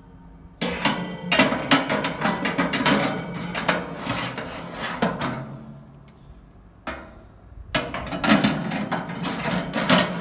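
Metal wire oven rack and rack lifter clattering and clinking against the oven's metal interior as they are handled, in two rattling bouts with a short lull between.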